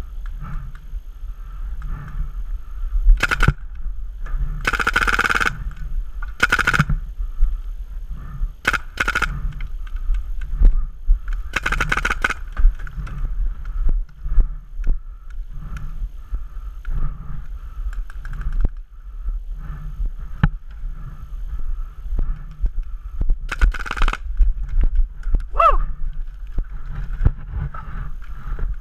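Paintball markers firing: several strings of rapid shots, the longest lasting about a second.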